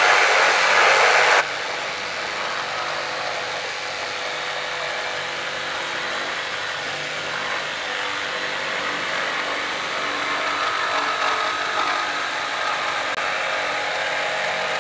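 Jigsaw running and cutting through a pine board. It is louder for about the first second and a half, then drops sharply and runs at a steady lower level, easing off near the end.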